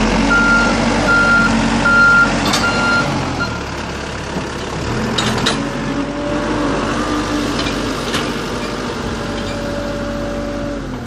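JCB backhoe loader's diesel engine running while its reversing alarm beeps in even pulses for the first three seconds or so. The engine note shifts about five seconds in, with a few metallic clanks from the machine.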